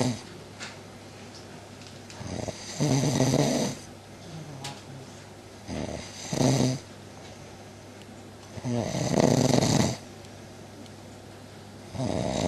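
A woman snoring in her sleep, with one loud snore roughly every three seconds.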